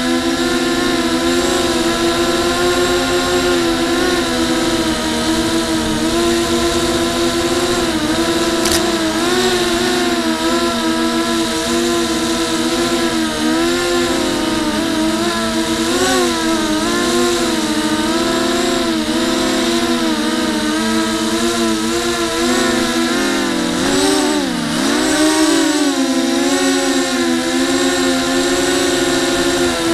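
Quadcopter's four brushless motors and propellers whining in flight, heard from its onboard camera; the pitch wavers constantly as the throttle changes, and about 24 seconds in it drops sharply and climbs back as the throttle is chopped and punched again.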